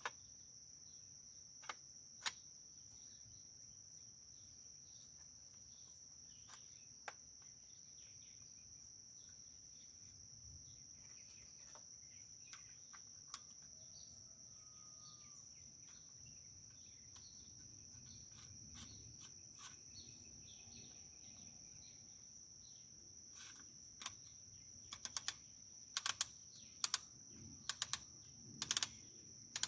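Faint, sharp clicks and clacks of a Winchester SXP 12-gauge pump shotgun being handled and assembled: a few single clicks early on, then a quick run of clicks over the last several seconds. A steady high insect drone runs underneath.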